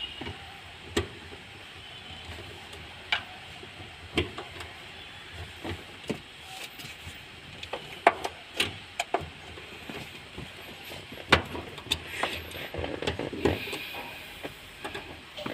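Irregular metallic clicks and taps of a hand tool working the 8 mm bolts on a fuel pump's mounting flange as they are undone.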